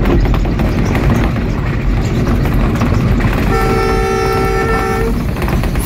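Train running with a steady rumble of wheels on rails. About three and a half seconds in, the ZCU-20 diesel locomotive's horn sounds one steady multi-tone blast lasting about a second and a half.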